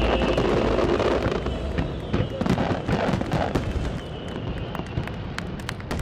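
Aerial fireworks display: a dense rumble of shell bursts with rapid crackling pops, thinning after a couple of seconds to scattered sharp cracks.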